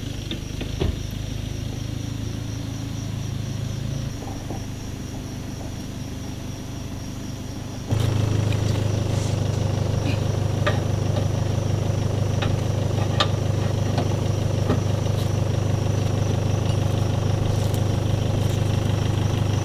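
A truck engine idling steadily, louder from about eight seconds in, with occasional light clicks over it.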